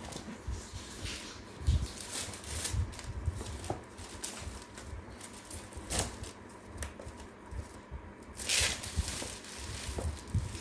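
Plastic wrapping sheet being pulled and crumpled off a cardboard box: crinkling and rustling with small handling knocks, and a longer crinkle about eight and a half seconds in.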